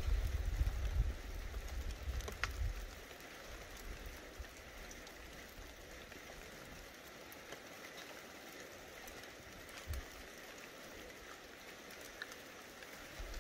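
Light rain falling: a steady hiss with scattered ticks of single drops. A low rumble is loudest at first and dies away about two seconds in.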